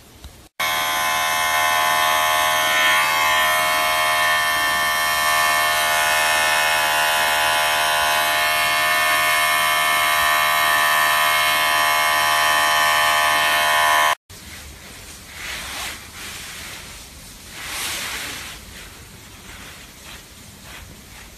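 Electric pet hair clippers running with a loud, steady buzz, cut off abruptly about 14 seconds in. After that, only a faint hiss with a few soft swells.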